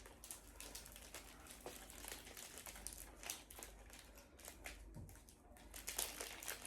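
Faint rustling and light clicks of plastic as an automatic pond-fish feeder's parts are handled and its bottom plate is worked loose.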